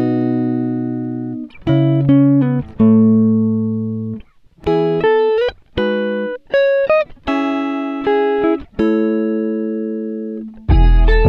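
Background music: a slow melody of plucked-string notes, each starting sharply and fading away, in short phrases with brief pauses between them.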